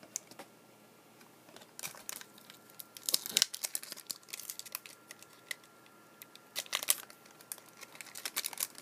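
Foil trading-card pack wrapper crinkling and tearing, with cards being handled, in several short bursts of rustling.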